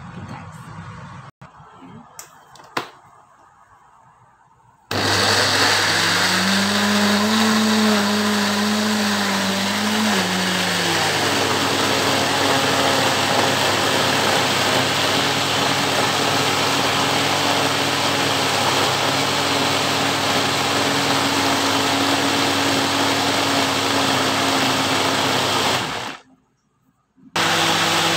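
Countertop electric blender running, blending a watermelon and vegetable smoothie. A few light knocks come first, then the motor starts about five seconds in. Its hum wavers in pitch for the first few seconds, then settles to a steady run. It cuts out near the end and starts again a second later.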